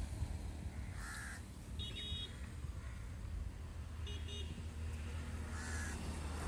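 Crows cawing twice, a few seconds apart, with two short high-pitched beeps between the caws, over a steady low rumble.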